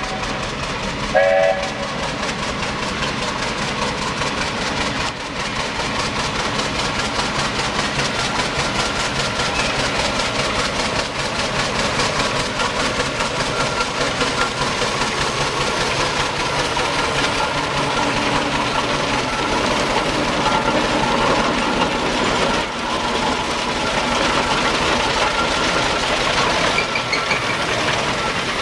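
Steam traction engine running as it approaches and passes, with a fast, even beat throughout, slightly louder as it comes nearer. A short toot of a steam whistle sounds about a second in.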